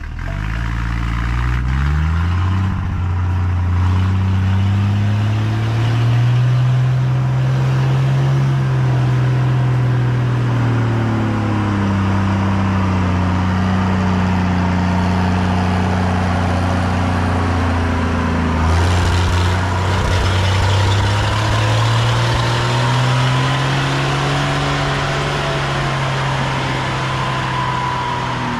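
An engine running steadily, its speed rising and falling slowly twice.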